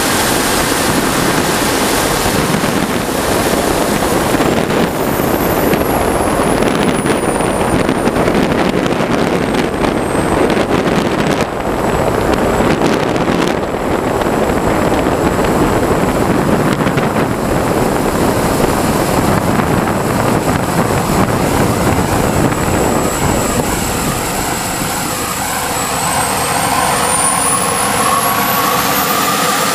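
Large RC sportjet's model jet turbine running loud, a rushing roar with a high whine that drops over a few seconds, holds steady, and climbs again near the end.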